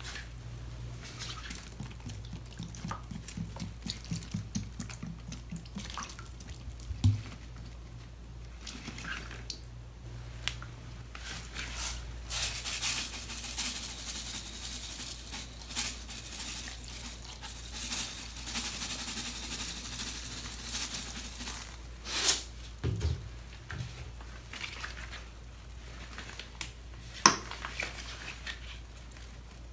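Soft cream cleanser squeezed from plastic squeeze bottles onto wet foam sponges, with squelches and soft handling noises, then scent crystal beads poured over the sponges in a steady hiss that runs for about ten seconds. Sharp clicks of bottle handling come in between.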